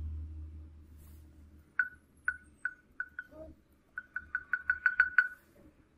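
Volume-key feedback beeps from a Samsung Android phone, one short tone at each press of the volume button. About five beeps come half a second or less apart, each quieter as the ringer volume is stepped down. Then a quick run of about eight beeps gets louder as the volume is stepped back up.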